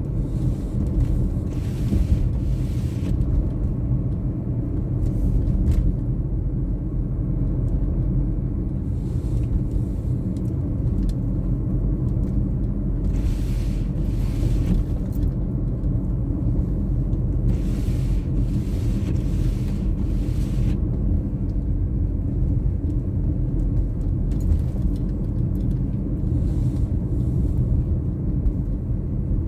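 A car driving on a snowy road: a steady low rumble of road and engine noise, with a few stretches of added hiss lasting a second or more.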